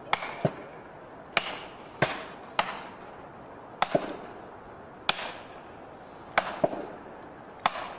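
An axe's poll hammering plastic felling wedges into the back cut of a large tree, to lift and tip the tree for felling. About eleven sharp strikes at an uneven pace, some in quick pairs.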